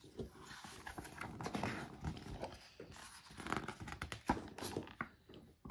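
Soft, irregular knocks and rustling: handling noise close to the microphone.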